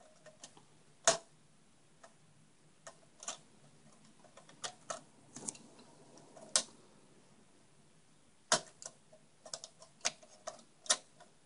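Scattered sharp metal and plastic clicks from the levers and load plate of an LGA 2011-v3 CPU socket being unhooked and swung open. The clicks are irregular and well spaced, the clearest about a second in, midway and about two-thirds through.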